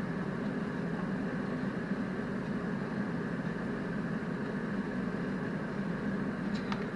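Salter XL air fryer's fan running steadily while it preheats, an even whirring hum.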